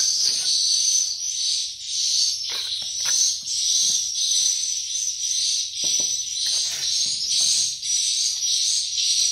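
Continuous high, dense twittering of swiftlet calls, the lure sound of a swiftlet house. Short scrapes and knocks from a steel trowel spreading mortar on clay bricks break in now and then.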